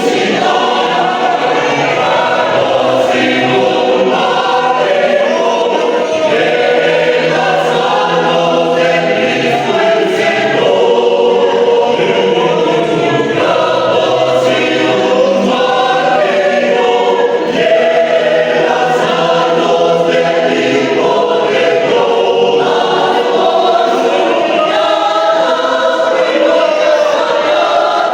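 A choir singing, many voices together in sustained, shifting chords.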